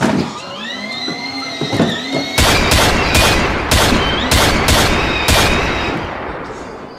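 A siren wailing up and down, then about seven pistol shots in quick succession, a handgun fired into the air, while the siren goes on beneath them and fades out near the end.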